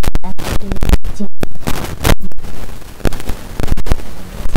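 Loud, irregular crackling and popping from a pan of prawns in thick masala gravy cooking on the stove, with a steel spoon stirring it at first. The pops are sharp and distorted.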